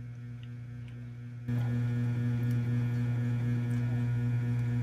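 Steady electrical hum with evenly spaced overtones. It is quieter at first and comes back louder about one and a half seconds in, then holds steady, with a few faint clicks over it.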